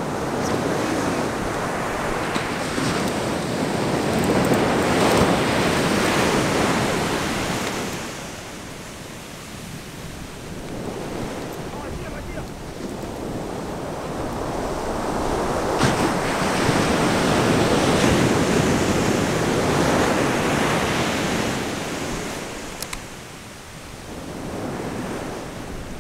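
Ocean surf breaking and washing up the beach, swelling and fading in two long surges, with wind buffeting the microphone.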